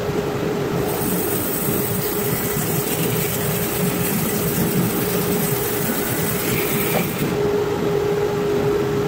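Grizzly G0513X2BF 17-inch bandsaw running with a steady hum. From about a second in until about seven seconds, its 1-inch bimetal blade cuts through spalted box elder, adding a hiss over the hum.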